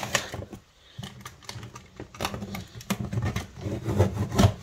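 A knife cutting the tape on a cardboard box, with scraping and knocking of the blade and hands against the cardboard in irregular bursts, loudest near the end.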